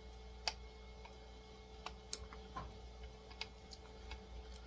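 Scattered small clicks and taps of a small screwdriver working at the screws that hold a die-cast model car in its packaging, over a faint steady hum. The sharpest click comes about half a second in and another about two seconds in.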